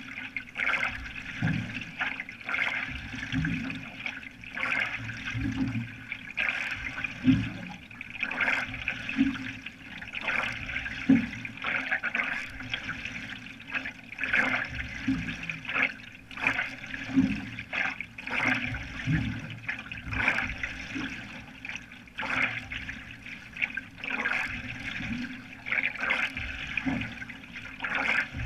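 Water splashing and gurgling around a canoe's bow as a single-blade paddle is pulled through the water, surging with each stroke about once a second.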